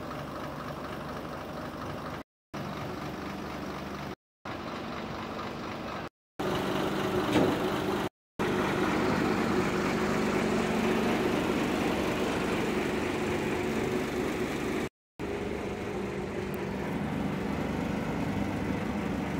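Ashok Leyland 1616 truck's diesel engine idling steadily. The sound is cut by several brief silent gaps and is louder from about six seconds in.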